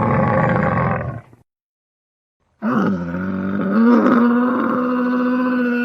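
Animal calls: a rough, roar-like call that stops about a second in, then after a short silent gap a second, long call held at a steady pitch.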